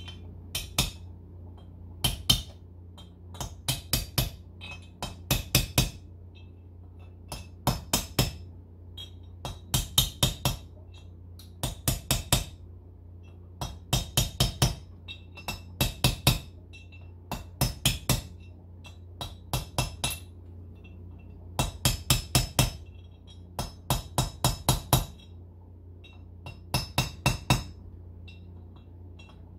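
Small hammer striking a brass punch held against a steel bearing race, driving the frozen race into a ZF park-brake housing a little at a time around its edge. Sharp metallic taps come in quick bunches of two to five, a bunch every second or two. A steady low hum runs underneath.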